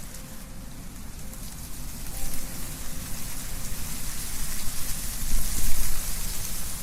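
Wind blowing through trees with leaves rustling, swelling in gusts from about two seconds in and strongest near the end.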